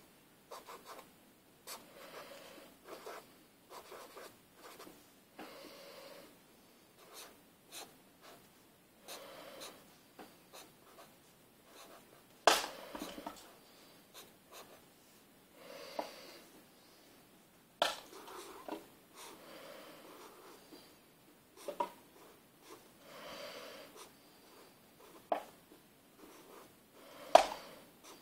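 Felt-tip marker writing on a sheet of paper: short, soft scratchy strokes a second or so apart, with a few sharp taps standing out, the loudest near the end.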